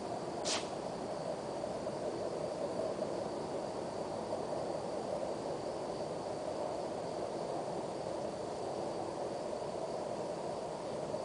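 Crickets trilling in one steady high tone over a constant low rumble, with a single brief sharp click about half a second in.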